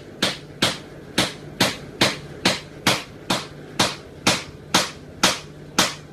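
A pug's claws scratching at wooden deck boards in a steady rhythm of about two strokes a second, stopping near the end.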